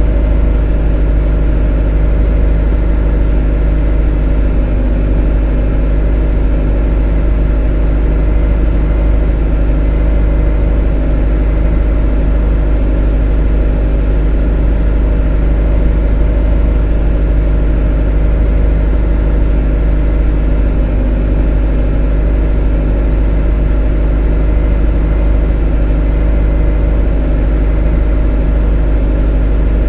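A motor running steadily: a deep, unchanging drone with several steady tones stacked above it.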